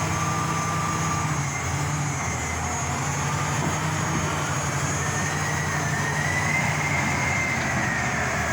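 Heavy engine running steadily, with a faint whine that slowly rises and falls in pitch in the second half.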